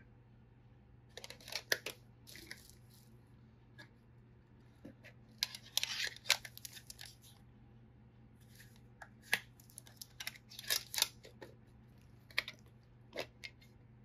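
Handling of boxed Zippo lighters: scattered small clicks and crinkling of the plastic wrap and the metal gift tins, coming in short clusters about a second in, around six seconds, and around ten to eleven seconds.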